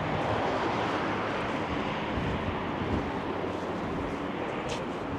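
A vehicle engine running steadily under outdoor noise and some wind on the microphone, with a brief high squeak near the end.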